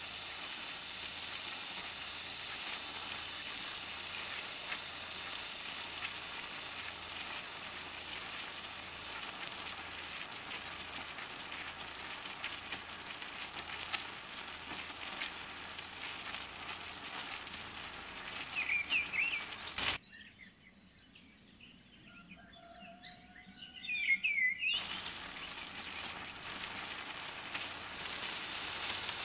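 Butter and chicken sizzling in a nonstick frying pan: a steady frying hiss with small pops. About two-thirds of the way through the sizzle drops away suddenly for a few seconds, and a run of short high squeaks is heard.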